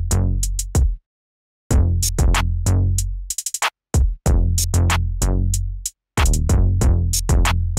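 Electronic backing music with a drum-machine beat and heavy bass. It stops dead for short moments between phrases, and a quick roll of hits comes about halfway through.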